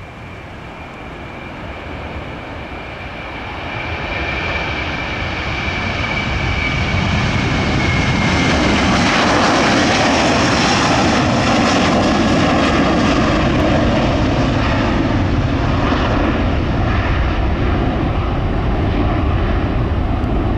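Delta Airbus A330-300 twin-engine jet departing at takeoff thrust. The engine noise grows louder over the first eight seconds or so and then holds steady, with a high fan whine that drops slightly in pitch and fades about nine seconds in.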